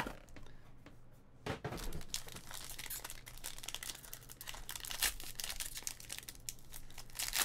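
Trading-card pack wrappers being torn open and crinkled, with cards shuffled and handled: irregular crackling and rustling after a brief lull about a second in.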